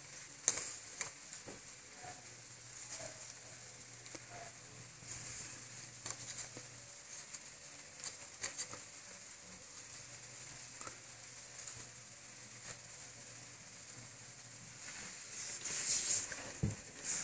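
Light taps and rustles as small plastic toy figurines are handled and set down on a surface, over a steady background hiss. The handling noise is loudest near the end.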